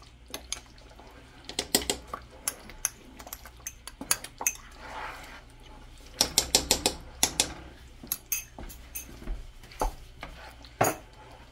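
Kitchen utensils clinking against dishes in uneven runs of sharp taps, with a quick run of about eight taps around six to seven seconds in.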